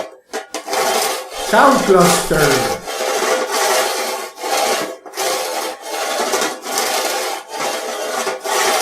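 Wrinkled metal plates scrubbed against each other in repeated rasping back-and-forth strokes, each about a second long with brief gaps between them.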